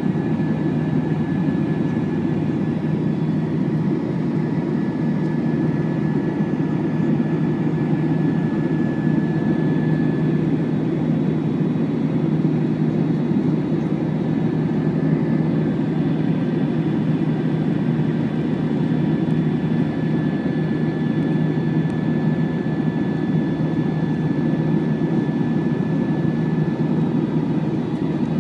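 Steady jet engine and airflow noise inside the cabin of an Airbus A321 climbing after takeoff: a deep, even rush with a thin, steady high whine over it.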